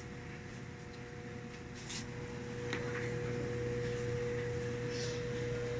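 Top-load automatic washing machine humming steadily. The hum grows louder after a couple of clicks about two to three seconds in. The motor is humming without turning the drum, which is typical of shorted driver ICs on the control board.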